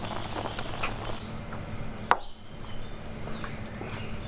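Large pot of beef tongues boiling hard over a wood fire: a steady bubbling rush with small crackles and a low hum, and one sharp click about two seconds in.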